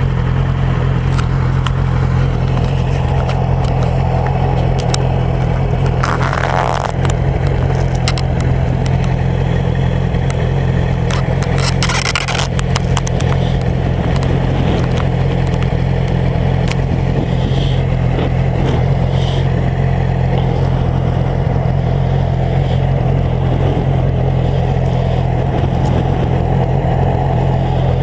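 A 2007 Yamaha YZF-R6's 600 cc inline-four engine idling steadily, with no revving. Brief rustling scrapes come about six and twelve seconds in.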